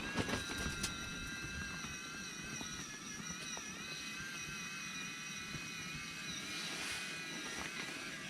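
Small electric motor of a Daiwa Crystia CRT+ wakasagi reel winding line: a steady high whine that starts abruptly and wavers slightly in pitch as it runs.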